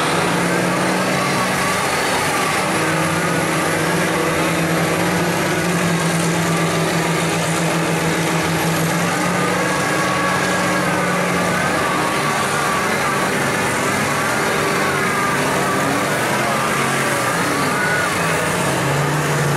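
Diesel mega mud truck engines running under load in a mud pit: a steady, heavy engine drone. About halfway through, a higher whining note starts wavering up and down for several seconds.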